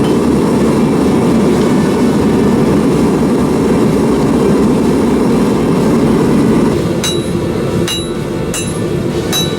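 Propane gas forge burner running with a steady, loud rush. About seven seconds in it drops a little, and a series of sharp, ringing metal strikes follows, about one every 0.7 s.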